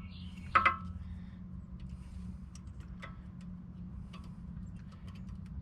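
Two sharp metallic clanks about half a second in, then scattered light clicks and ticks as rear brake pads and their hardware are worked into place by hand. A steady low hum runs underneath.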